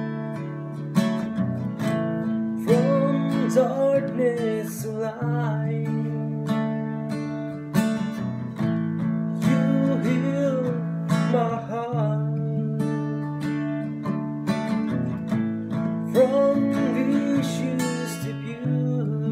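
Acoustic guitar strummed in a steady chord pattern. A man's voice sings over it in a few stretches.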